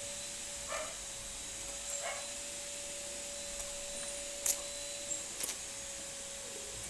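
A child drinking from a small plastic Yakult bottle, with a couple of soft swallowing sounds early on and a few light clicks of the plastic bottle about two-thirds of the way through, over a steady faint hum.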